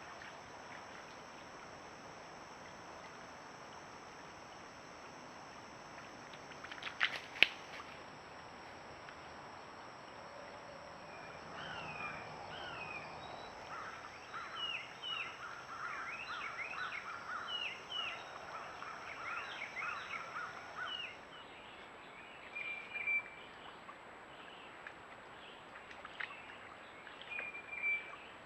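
Small birds calling outdoors: a run of quick, downward-sweeping chirps with a repeated lower note, busiest from about 11 to 21 seconds, over a faint steady hiss. A sharp double click comes about seven seconds in.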